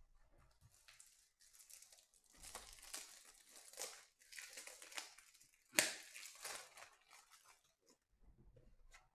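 Trading card pack wrapper crinkling and tearing as packs are opened and handled, in irregular crackles with one sharp, louder crackle a little over halfway through.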